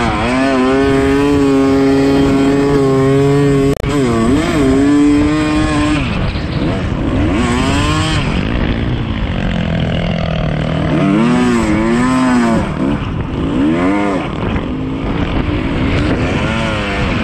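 Yamaha YZ250 two-stroke dirt bike engine running hard under throttle. It holds a steady pitch for the first few seconds, cuts out for an instant about four seconds in, then revs up and down repeatedly as the throttle is worked.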